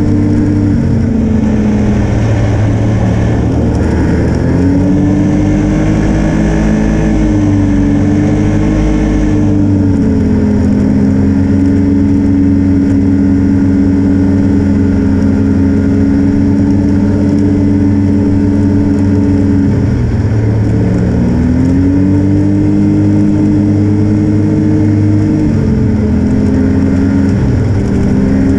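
Snowmobile engine running under throttle while riding. Its pitch holds mostly steady, easing down and climbing back several times as the throttle is backed off and reapplied.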